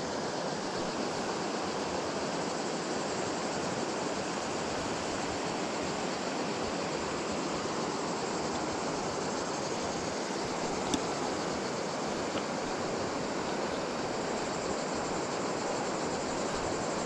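Shallow river water running over stones, a steady even rushing, with one faint click about eleven seconds in.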